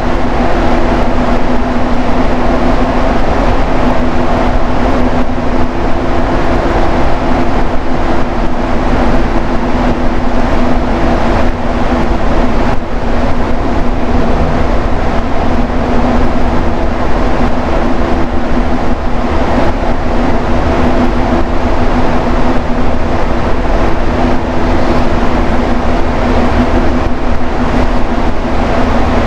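Rubber-tyred Montreal metro train running at speed between stations, heard from inside the car: a loud, steady rolling noise with a steady hum of several tones.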